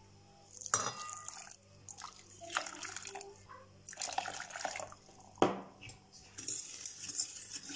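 Water poured from a drinking glass into a stainless steel pot onto a bed of sugar, in separate pours, with two sharp knocks, one about a second in and one near five and a half seconds.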